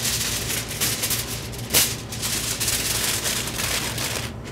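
Aluminium foil crinkling as it is folded and crimped closed around a sauced rack of ribs, sealing a packet to steam the meat. There is one louder crackle about two seconds in.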